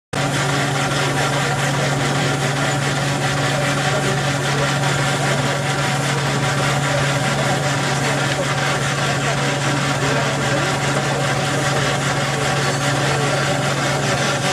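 Engines running steadily: a constant low hum with busy mechanical noise over it, a miniature steam traction engine among them.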